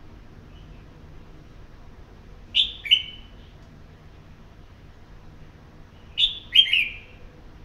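Red-whiskered bulbul singing two short phrases a few seconds apart, each two or three quick notes falling in pitch.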